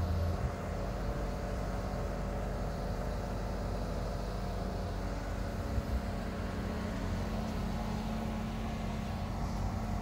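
Mobile crane's diesel engine running steadily as it hoists a manufactured-home section, with a low bump at the start and a brief knock about six seconds in.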